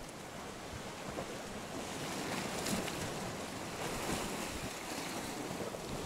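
Sea waves washing against shoreline rocks, a steady rushing surf, with wind buffeting the microphone.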